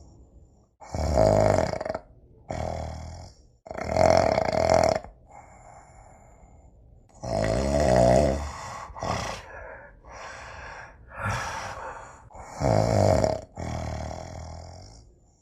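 A person snoring: a series of about eight snores, loud ones alternating with quieter ones, each a second or two long with short gaps between.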